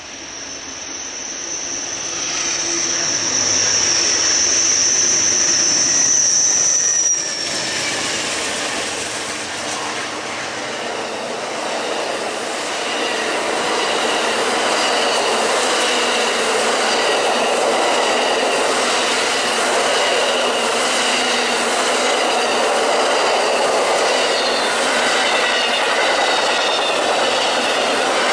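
Amtrak Auto Train passing at speed. As it approaches there is a loud, steady, high-pitched whine that cuts off suddenly about seven seconds in. Then the long string of bilevel passenger cars and autoracks runs by with a continuous clatter of wheels on rail joints and high squealing tones.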